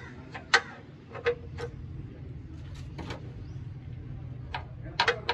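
Short metallic clicks and clinks of a ratchet wrench and socket working a bolt under the engine, coming singly or in pairs at irregular gaps, over a steady low hum.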